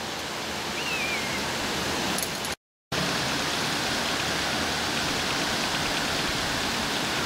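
Steady rush of water running over a river weir and through its fish ladder: an even, unbroken hiss, cut by a moment of silence about a third of the way in.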